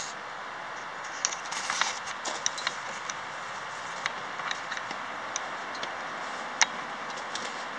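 Handling and footstep noises of someone climbing across between two standing freight cars: scattered small clicks, scrapes and crunches over a steady hiss. The clicks come thickest in the first few seconds, and one sharper click comes later.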